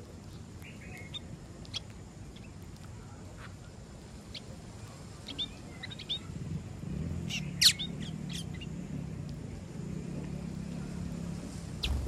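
Small seed-eating birds chirping: scattered short, high chirps, with a quick run of louder chirps a little past halfway. A low steady hum sits underneath in the second half.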